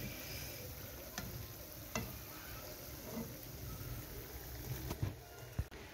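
Date-filled semolina makrout frying in hot oil in a pan, a low steady sizzle, with a few light clicks of a metal spatula against the pan.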